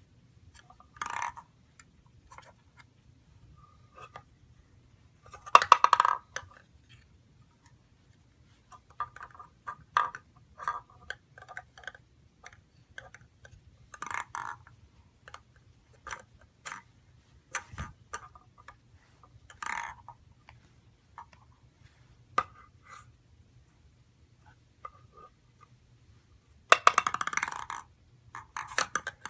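Wooden Montessori ball-drop box being handled by an infant: scattered knocks and clicks of hands and a plastic ball on the wood. Two longer rattling clatters, about six seconds in and near the end, as the ball rolls and bumps through the wooden box and tray.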